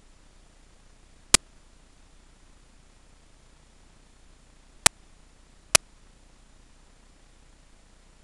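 Three short, sharp clicks over a faint steady hiss; the last two come less than a second apart.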